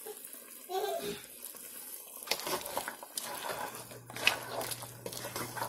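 Wooden spoon stirring pieces of curry goat in a pot of simmering sauce: soft scrapes, light knocks and wet sloshing. A low steady hum comes in a little past halfway.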